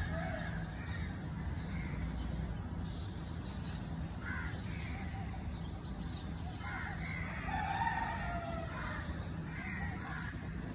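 Crows cawing in several short bouts, about four seconds in and again from about seven to nine and a half seconds, over a steady low hum.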